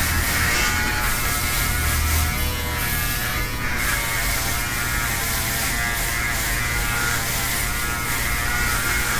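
Handheld electric shaver buzzing steadily as it is run over an already close-cropped scalp, taking the head down to bare skin.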